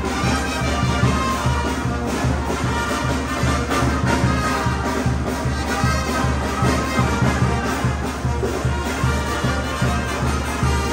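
Live Mexican banda (brass band) music: trumpets and trombones playing over a steady bass beat.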